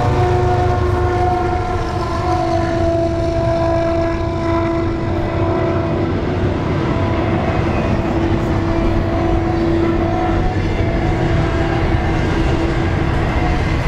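Double-stack intermodal freight cars rolling past at speed: a steady, loud rumble of steel wheels on the rails. Over it sit several held tones, which fade after about ten seconds.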